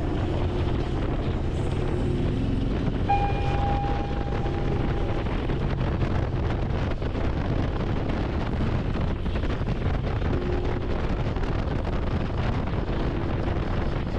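A motorcycle on the move at road speed: the engine runs steadily under heavy wind rush on the microphone.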